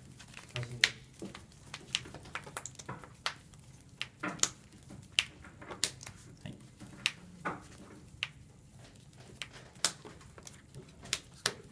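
Sleeved trading cards being handled on a playmat: irregular sharp clicks and taps as cards are picked up, set down and slid.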